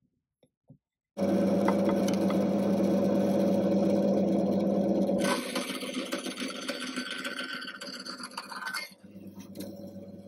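Band saw running and cutting a small wooden dowel. A steady motor hum starts suddenly about a second in; about halfway through the sound changes abruptly to a quieter, hissier cutting noise.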